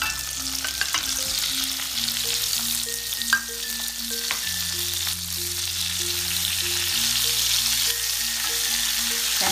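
Stuffed ridge gourd pieces sizzling as they fry in hot oil with mustard seeds and cumin in a steel pan, with a spatula clicking and scraping against the pan and one louder knock about a third of the way in. Soft background music with a slow stepping melody runs underneath.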